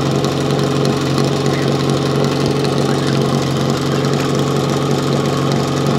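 Portable fire pump's engine idling steadily as a constant low drone, running without load before the fire-attack run begins.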